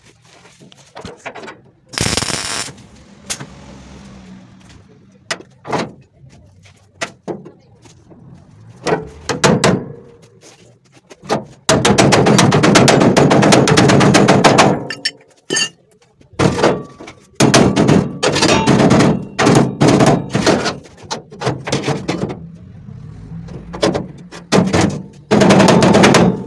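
Metalwork on a truck cab's steel floor frame: separate hammer knocks on steel, then long crackling bursts of rapid impacts, the longest about three seconds, a little before the middle.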